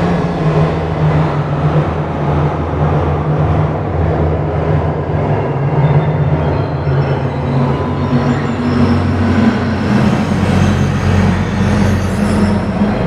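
Electronic ambient drone soundscape: a dense, rumbling wash of noise over sustained low tones, with the low tones shifting upward about eight seconds in.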